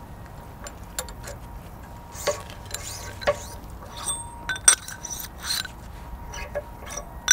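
Steel pins and bushings clinking and knocking against a steel hydraulic hammer bracket as they are worked out of its bores by hand. The short metallic clinks are scattered and irregular, the sharpest one near the end.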